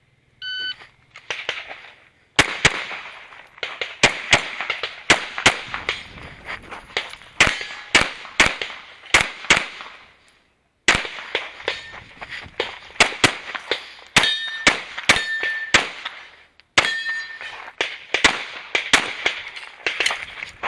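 Electronic shot-timer start beep about half a second in, then rapid handgun fire in quick pairs and strings, with two short pauses. Several hits near the end ring steel targets with a brief held tone.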